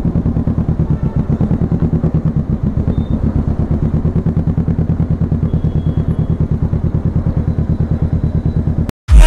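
Kawasaki Ninja motorcycle engine running steadily at low revs, an even low pulsing beat with no revving. It cuts off suddenly near the end.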